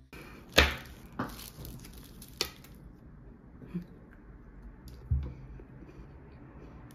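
Three sharp clicks and taps as an alfajor is broken and handled on its foil wrapper, the loudest about half a second in. Then faint chewing, with two soft thumps.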